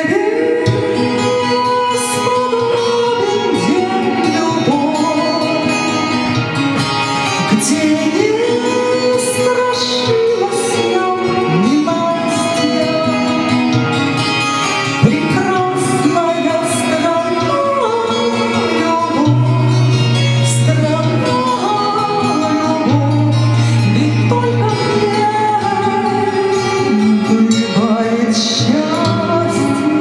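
A woman singing a Russian song into a microphone, with long held notes that glide and waver, over a recorded instrumental backing track played through loudspeakers.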